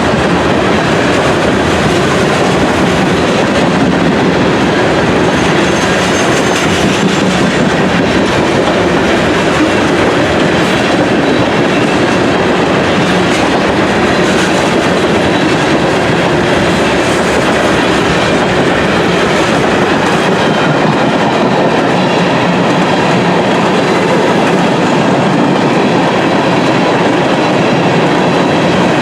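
A train passing close by: a loud, steady rumble and clatter of railroad cars' wheels on the rails.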